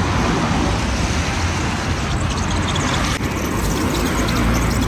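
Street traffic: cars and buses passing, a steady low rumble with road noise.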